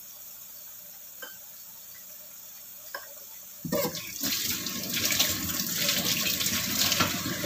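Water running from a tap into a sink: it is turned on suddenly a little past halfway and keeps splashing steadily. Before it, only a faint steady hiss with two small clicks.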